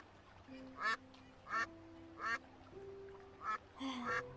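Duck quacking: a series of about five short quacks, spaced irregularly, over faint steady held tones.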